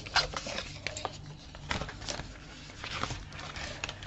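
Paper and card being handled at a craft table: scattered rustles and light taps as stuck-down paper pieces are lifted and pressed back into place.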